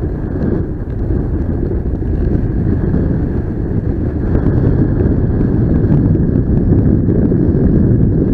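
Wind buffeting the microphone, a steady loud rush: the airflow of a paraglider in flight.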